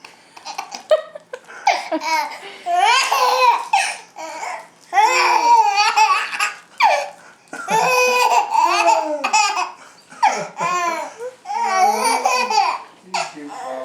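A baby laughing hard in several bouts with short breaks between, set off by a pretend sneeze.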